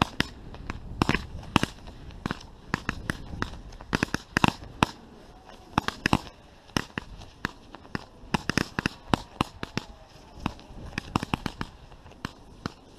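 Fireworks going off during a display: an irregular, rapid run of sharp bangs and cracks, several a second.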